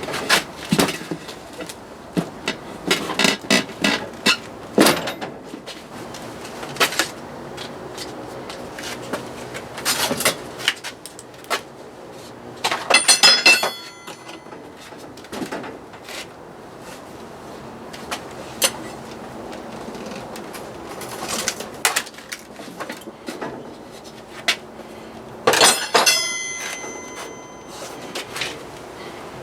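Workshop handling of tools and metal parts: irregular knocks and clicks, with a bright metallic jingle of clinking parts twice.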